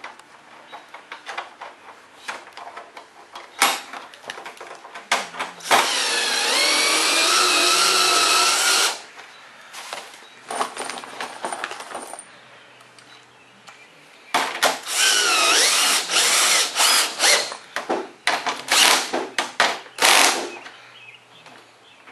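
Cordless power driver running screws in two long bursts, one about six seconds in and a longer one from about fourteen seconds, its motor pitch sagging and rising as it runs. Clicks and knocks of handling are heard before and between the bursts.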